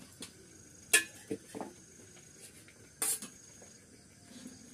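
Metal spatula knocking and scraping against a wide metal pan of milk as it is stirred: a sharp clink about a second in, a few lighter knocks after it, and a longer scrape about three seconds in. Crickets trill steadily in the background.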